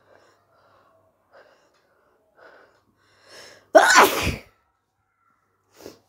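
One loud human sneeze about four seconds in, after a few short inhales that grow louder. A brief breath follows near the end.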